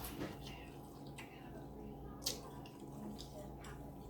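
Wet eating sounds of chewing seafood close to the microphone, with several sharp wet smacks and clicks.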